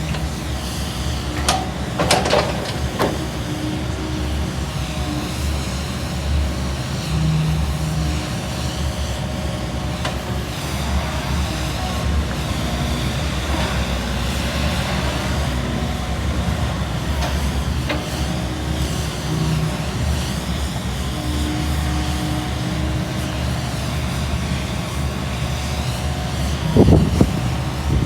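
Kobelco SK75SR-3E excavator's diesel engine running steadily. There are a few sharp knocks about two seconds in and again near the end.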